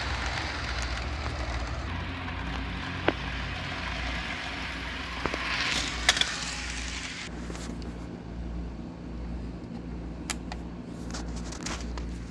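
Model train running on the layout track: a steady low motor hum with a rushing running noise that fades after about six seconds. Scattered sharp clicks, the loudest about three and six seconds in.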